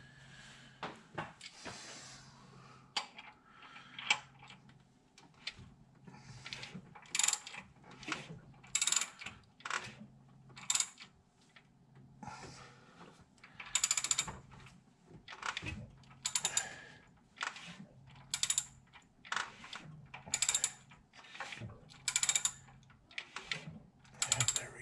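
Ratchet wrench clicking in short bursts about once a second, turning a 6.4L Hemi V8 over by hand to check that the valves move after a rocker arm install.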